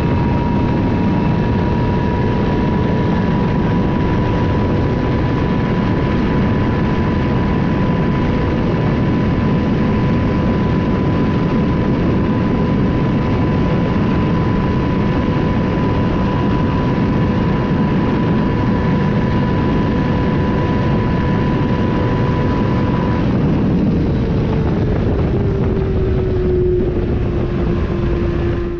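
Kawasaki ZX-6R's inline-four engine held at high revs at top speed, a steady high-pitched note over heavy wind rush. Late on, the throttle closes and the engine note falls as the bike slows.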